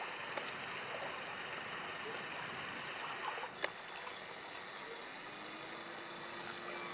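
Steady low hiss of outdoor background noise, with a single sharp click about three and a half seconds in and a faint steady hum that comes in near the end.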